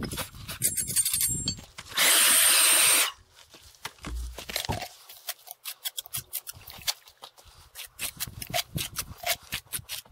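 Steel trowel scraping and tapping on a cultured stone sill cap as mortar is spread onto it, in many short strokes. About two seconds in, a loud harsh hiss lasts about a second and is the loudest sound.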